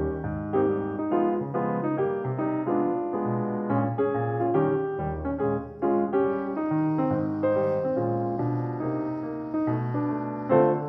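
Background piano music: a continuous flowing run of notes at a steady level.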